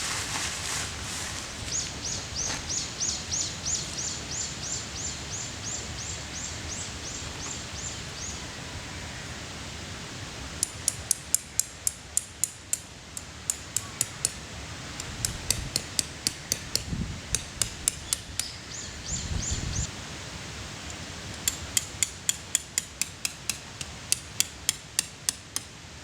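Runs of sharp hammer blows on metal, about three to four strikes a second, each ringing briefly. Earlier, a bird gives a fast series of short, high chirps.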